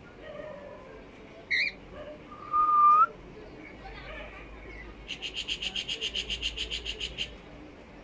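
Cockatiel calls: a short chirp, then a loud short rising whistle, then a rapid run of repeated chirps, about ten a second, for some two seconds.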